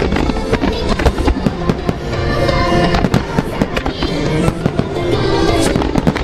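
A starmine fireworks barrage: many shells bursting in quick succession, with loud music played over loudspeakers alongside it.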